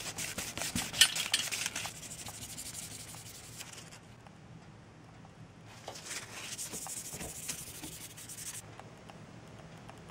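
Rubbing and scraping with many small clicks, in two bouts: one at the start with a sharp click about a second in, and another from about six seconds in.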